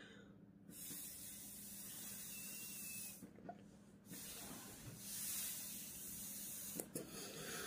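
Breath blown hard through a drinking straw into a nano tape balloon pouch: two long airy blows of a few seconds each, with a short break about three seconds in. The tape pouch is not inflating despite the effort.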